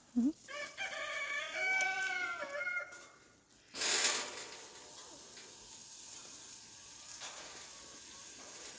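A rooster crowing once, a call of about two and a half seconds. About a second after it ends, a brief burst of rushing noise, then a steady faint hiss.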